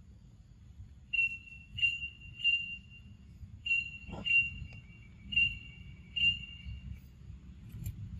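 A series of about eight short, high whistle-like calls at one steady pitch, repeated over some six seconds, with a brief falling call about four seconds in, over a low rumble.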